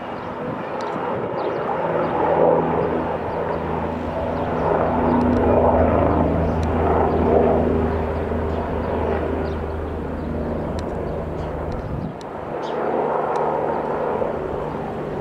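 Leonardo AW169 twin-engine helicopter flying low overhead, its rotor and turbines making a steady low hum and rush that swells louder and eases off several times, dipping briefly near the end.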